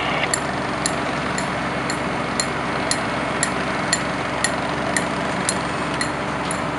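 Steady running of fire apparatus engines and pumps, with a sharp tick repeating about twice a second.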